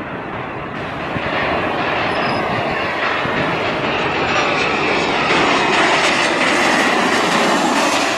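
Lion Air Boeing 737 airliner's jet engines on landing approach: a steady rushing rumble with a whine that falls in pitch as the plane passes, growing louder to a peak shortly before it reaches the runway.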